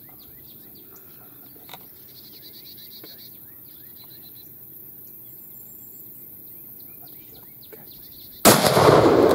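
Faint outdoor background with light chirping, then about eight and a half seconds in a single very loud .300 Winchester Magnum rifle shot, its blast rolling on and fading as it echoes.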